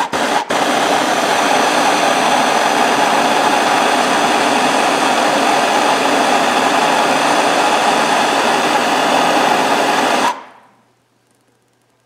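Handheld gas torch burning with a steady hiss as it heats a crimped battery-cable eyelet for soldering. It cuts out briefly just after the start, then runs evenly and is shut off a little after ten seconds in.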